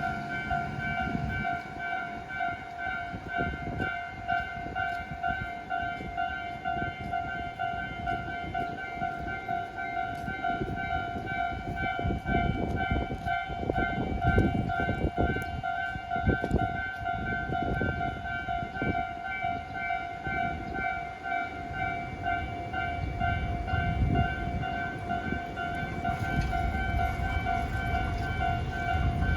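Japanese railway level-crossing warning bell ringing continuously, a rapidly repeating electronic ding, over a low rumble that swells in the middle.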